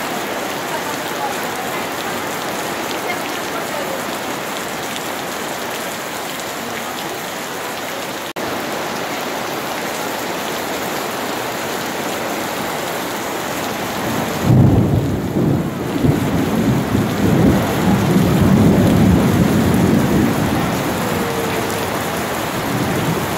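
Steady heavy rain. About two-thirds of the way through, a loud, low rolling rumble of thunder rises over it for several seconds.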